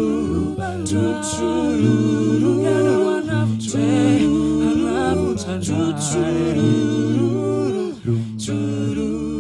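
Mixed group of men's and women's voices singing a cappella in harmony, a low bass part held under the higher voices, with crisp consonant attacks.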